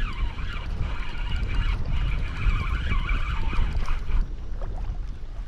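Boat motor running steadily at low trolling speed, a constant low rumble with a wavering higher whine over it.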